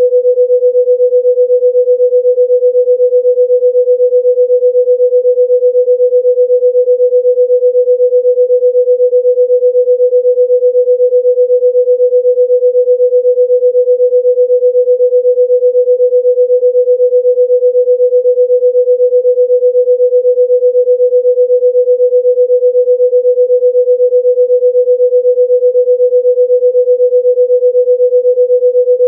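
A single steady pure tone at about 500 Hz, unchanging in pitch, with a slight, even pulse in loudness: an electronically generated 'healing frequency' tone of the kind played for sound healing.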